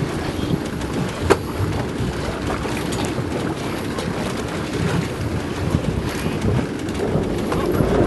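Wind buffeting the microphone over water sloshing and splashing around a boat on open sea, a steady rumbling rush with a sharp tap about a second in.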